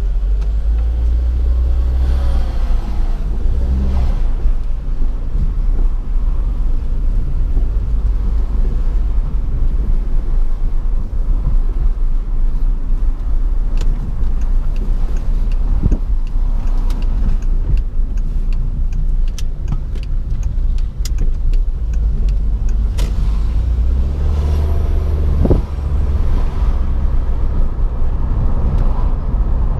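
Volkswagen Golf IV turbo on the move: a steady heavy low rumble of engine and road, with the engine note swelling twice, near the start and about three quarters of the way through. Scattered sharp ticks come in the middle stretch.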